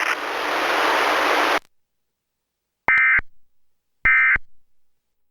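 Emergency Alert System end-of-message data bursts: two short, buzzy warbling digital tone bursts about a second apart, closing a Required Monthly Test. Before them a steady hiss of static cuts off suddenly.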